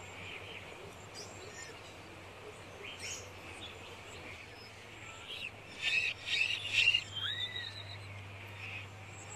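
Faint bird chirps and calls over a low steady hum, with a louder cluster of chirps and a short rising-then-falling whistle about six to seven seconds in.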